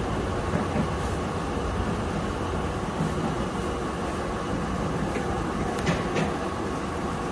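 Steady running noise heard inside the cab of a Tobu 8000-series electric train rolling slowly along a station platform, with a few light clicks about six seconds in.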